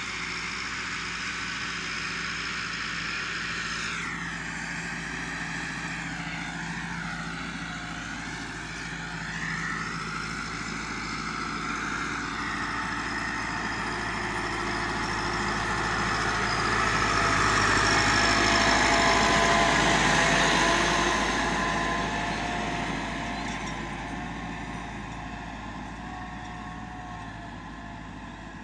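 Massey Ferguson 385 tractor's four-cylinder diesel engine working under load as it pulls a laser land leveller through loose soil. Its note wavers up and down in pitch for several seconds near the start. It grows louder as the tractor comes near, about two-thirds of the way through, then fades as it pulls away.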